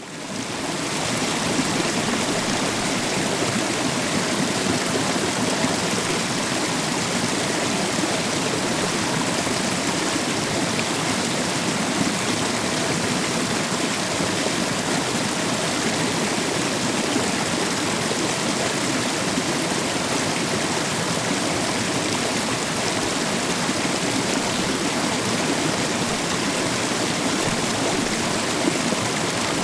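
Waterfall: a steady, even rush of falling water that fades in over the first second.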